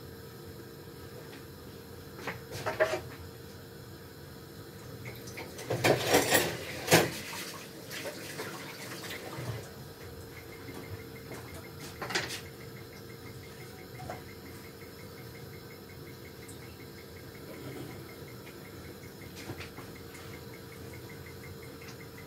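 Steady hiss of a gas hob burner heating a tortilla in a dry frying pan, broken by short clatters of kitchen utensils: a cluster about six to seven seconds in, and a spatula set down on a wooden chopping board about twelve seconds in.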